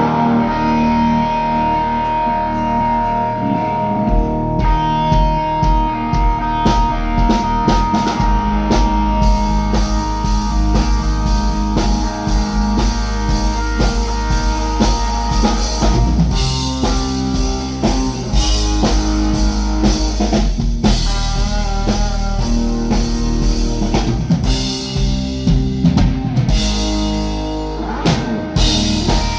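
Live band with guitars and drum kit playing a chorus together through the stage PA, counted in just before; the kick drum and then cymbals fill in over the first several seconds.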